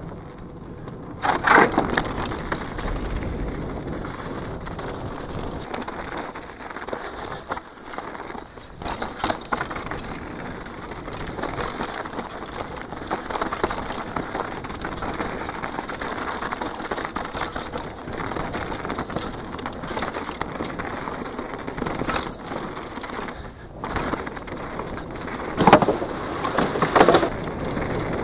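Downhill mountain bike riding fast down a dirt and rock trail: steady tyre roar on the loose dirt and the bike's rattle, with harder knocks about a second and a half in and twice near the end as it hits bumps.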